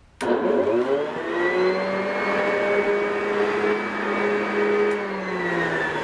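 Hoover Convertible U4127 upright vacuum cleaner switched on with a click, its motor and fan spinning up to a steady whine, with the pitch rising over the first second or so. About five seconds in the pitch starts to fall slowly.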